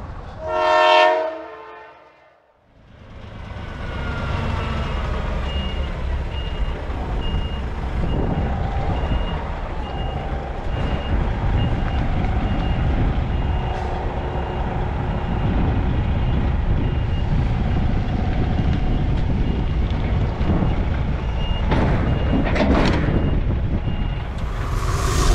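Diesel engine of a DAF XF truck running as the truck manoeuvres slowly, with a reversing alarm beeping regularly, a little over once a second. A short pitched tone sounds about a second in, and a brief hiss comes at the very end.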